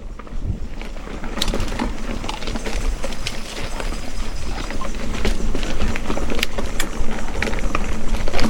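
Bicycle riding over a rough dirt trail: a steady rumble of tyres and frame with many sharp rattles and knocks, growing louder towards the end.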